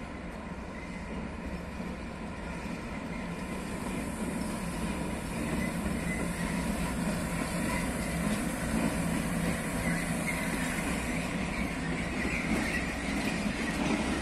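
PKP Cargo ET22 electric freight locomotive hauling empty flat wagons, running past at low speed with a steady noise of motors and wheels on rail, growing louder as it approaches.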